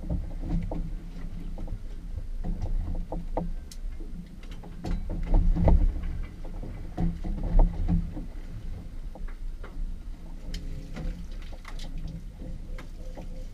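Center-console boat at sea: low rumble of water and wind against the hull, with a faint steady hum, scattered knocks and clicks on deck, and a couple of heavier low thumps about halfway through.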